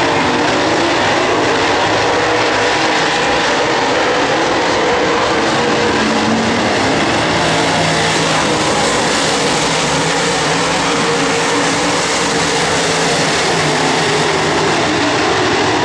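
A field of dirt late model race cars' V8 engines running hard at racing speed, many engines at once blending into one steady, loud drone.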